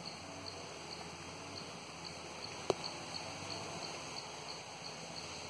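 Insects chirping in a steady, even rhythm of about three high-pitched pulses a second over a quiet outdoor background, with one sharp click about two and a half seconds in.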